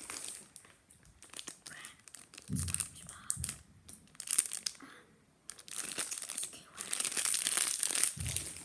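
Clear plastic candy wrapper crinkling and tearing as it is handled and opened by hand. The crinkling comes in irregular bursts and is thickest over the last three seconds.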